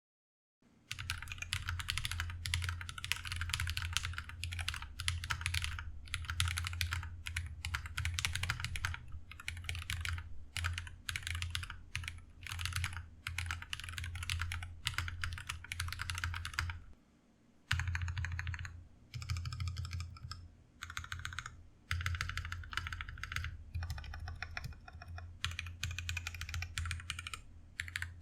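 Steady typing on a GMMK Pro custom mechanical keyboard with lubed Glorious Panda tactile switches, Holee-modded stabilizers and Whale PBT keycaps, in quick runs of keystrokes with short pauses. There is one longer pause about two-thirds through, broken by a single loud keystroke.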